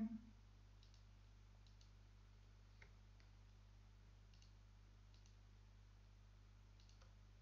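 Near silence: a steady low electrical hum with a few faint, scattered computer mouse clicks.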